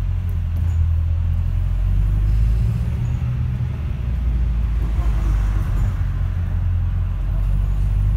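Heavy, steady low rumble of a double-decker bus heard from inside as it drives, with a faint rising and falling sound around the middle.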